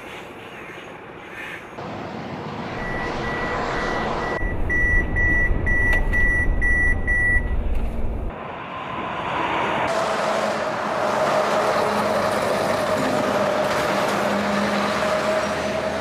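A truck's in-cab collision warning sounds as a high beep, first held and then pulsing about twice a second, over the heavy low rumble of the truck braking hard. It is the warning of the truck's emergency braking system. After about eight seconds it gives way to steady engine and road noise heard inside a truck cab.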